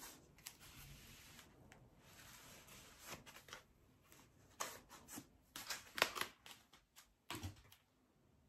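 Makeup packaging being handled: rustling and crinkling of the wrapping, then a series of light clicks and taps.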